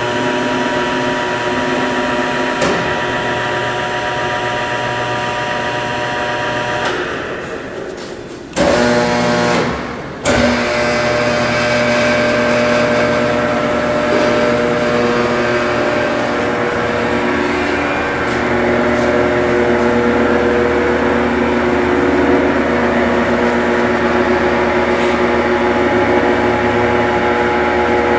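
P&H WP12 welding positioner's electric drive motors and gearing running under pendant control, a steady mechanical hum with several held tones. It winds down about seven seconds in, starts again abruptly, cuts out briefly, then starts again and runs steadily.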